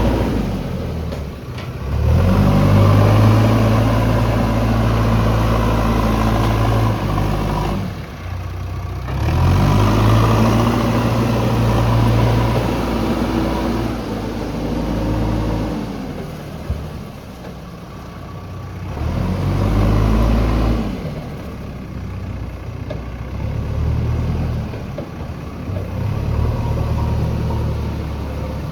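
JCB backhoe loader's diesel engine working under load, revving up and dropping back to a lower speed several times as the machine moves and works its hydraulics.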